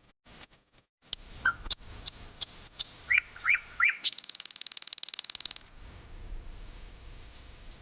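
Bird calling: several sharp chips and short chirps, then a fast high trill of about a second and a half.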